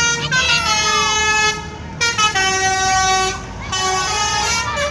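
Bus telolet basuri multi-tone horn playing a melody of held, flute-like notes that change pitch in steps, with two short breaks between phrases, over a low engine and traffic rumble.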